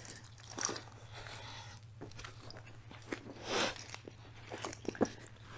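Rustling and scattered light clicks and knocks of a person shifting position on an exercise mat and handling resistance bands with clip attachments, with one longer rustle a little past halfway, over a faint steady hum.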